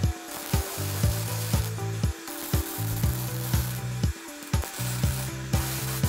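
MIG welder arc crackling and sizzling on steel sheet in short welds that stop and start, over background music with a steady beat of about two thumps a second.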